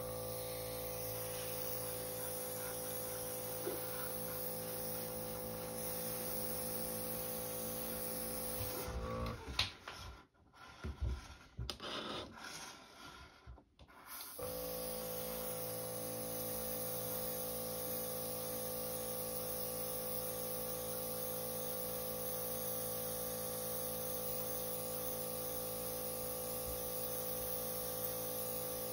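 Airbrush compressor running with a steady hum and hiss. About nine seconds in it stops for a few seconds of irregular knocks and rubbing as the model is handled and turned, then runs steadily again.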